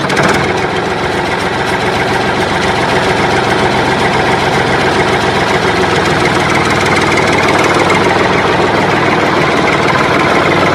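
Engine running steadily at idle, a continuous even rumble. It is a dubbed engine sound effect, since the plastic toy tractors being pulled on a string have no motor.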